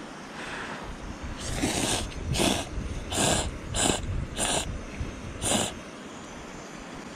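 A person slurping instant ramen noodles from a pot: six loud slurps in quick succession.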